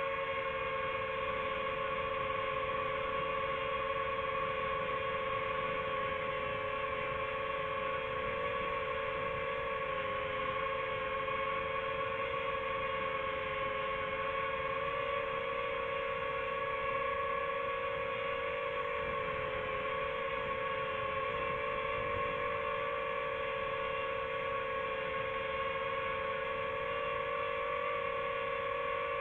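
A multirotor drone's motors and propellers heard up close while it hovers: a steady high-pitched hum whose pitch wavers slightly a couple of times.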